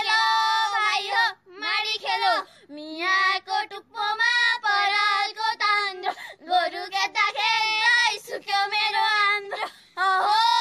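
A high female voice singing a traditional Nepali threshing song without accompaniment, in long held notes that bend up and down, with short breaks between phrases.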